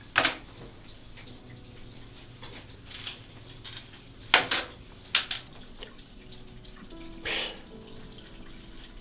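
Playing cards being dealt by hand: a handful of short, sharp flicks and swishes at uneven intervals, the loudest just after the start and about four and a half seconds in.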